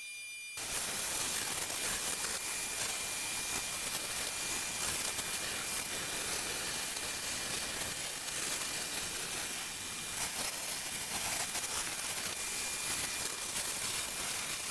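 Sandblaster blasting bare steel floor pan, a steady loud hiss that starts about half a second in. The blasting is cleaning phosphoric-acid residue off the metal.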